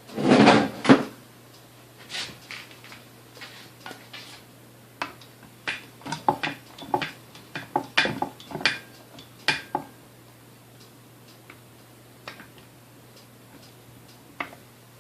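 Small metal parts and tools being handled during mixer reassembly: a loud clatter in the first second, then irregular clicks and clinks, busiest in the middle and thinning out near the end, over a faint steady hum.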